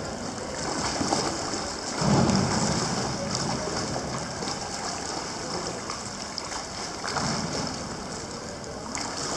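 Indoor swimming pool ambience: water lapping and sloshing along the pool edge with a steady hiss, and a brief low rumble about two seconds in.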